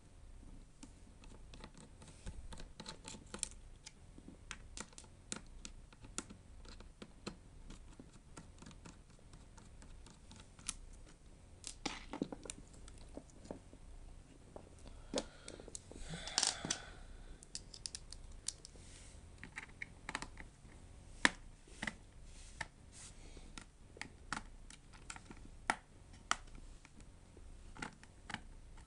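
Scattered light clicks and taps of small hand tools and parts while a MacBook A1342 unibody laptop is taken apart, with a short scraping rustle about halfway through.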